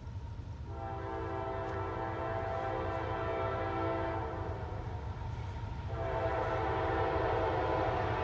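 Locomotive air horn on the lead unit, rebuilt CSX CM44AC 7234, sounding a multi-note chord in two blasts. The first blast is long, and the second starts about a second after it ends. A steady low rumble of the approaching train runs underneath.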